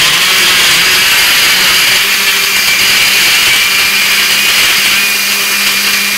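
Countertop blender running steadily at speed, blending fruit and ice into a smoothie: a loud, even motor whir with a constant hum underneath.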